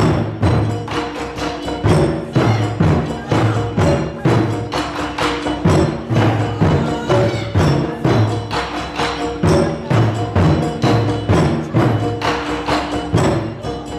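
Taiko ensemble drumming: a large odaiko on a tall stand and smaller drums struck with wooden bachi sticks in a fast, even rhythm, with deep low thuds and a ringing tone running through.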